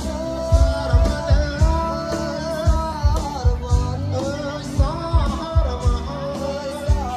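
Live concert music: a singer over a band with guitar and a steady drum beat, about two kick-drum hits a second.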